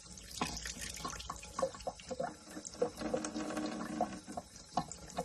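Water running and splashing, with irregular drips and small clicks, and a short pitched sound about three seconds in.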